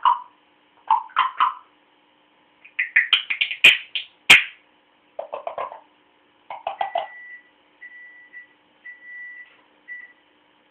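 A pet's run of short chirping, squeaking calls with two sharp clicks near the middle, followed by four short, steady beep-like whistles in the second half.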